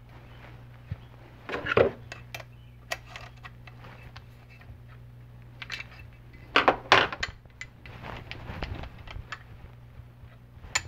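Clinks and clatters of steel parts and hand tools being handled on a workbench: a T-handle hex key working at the rotary table and the encoder adapter being fitted, with louder knocks about two seconds in and around seven seconds. A steady low hum runs underneath.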